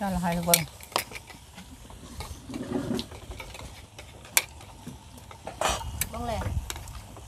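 Metal tongs and chopsticks clinking against a tabletop grill pan and dishes in several sharp clicks, with fish faintly sizzling on the grill.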